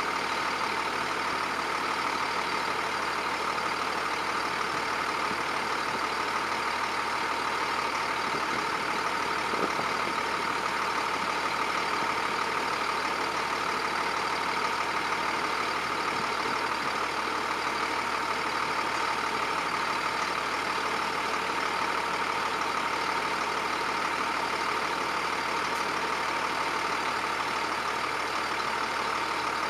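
John Deere 7710 tractor's six-cylinder turbo diesel running steadily under load while pulling a reversible plough.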